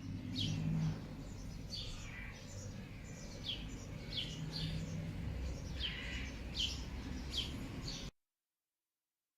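Birds chirping: short, downward-sweeping chirps, roughly one a second, over a steady low rumble. The sound cuts off suddenly near the end.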